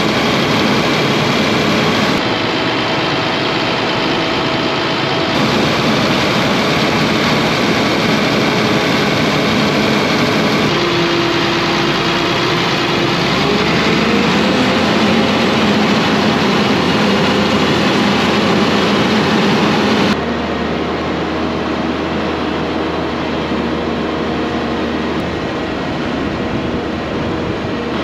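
Tractor's Caterpillar diesel engine running steadily. Its tone shifts abruptly a few times, and its pitch rises briefly about 13 seconds in.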